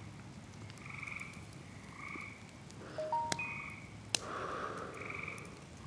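Frogs calling: short trilled croaks at two pitches, one every second or so. About three seconds in come a few short electronic beeps and a couple of sharp clicks.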